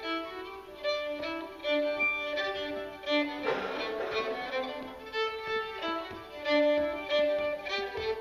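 Solo fiddle playing a traditional Irish or Scottish folk tune in a quick run of short bowed notes. A brief burst of noise sounds under the notes about three and a half seconds in.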